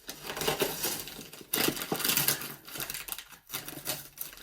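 A parcel being opened by hand: irregular rustling, crinkling and scraping of its packaging, loudest about halfway through.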